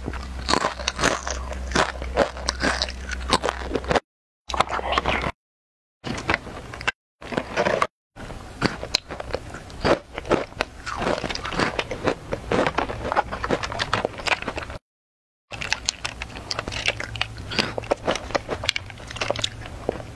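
Close-miked crunchy bites and chewing of crisp snacks, a quick crackling run of sharp crunches, with the crinkle of a small plastic snack wrapper being opened in the middle. The sound cuts out abruptly to dead silence several times.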